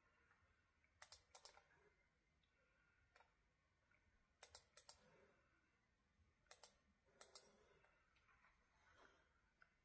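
Near silence: faint room tone broken by several small groups of light clicks.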